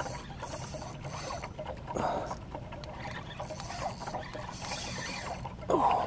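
Fishing reel being cranked against a hooked fish: a fast, fine ticking over a low steady hum, with two short louder bursts about two seconds in and near the end.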